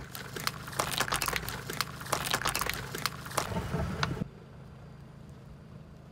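Rapid crackling and crunching of plastic jelly cups being crushed under a car tyre, over a low engine hum. It cuts off abruptly about four seconds in, leaving only faint background noise.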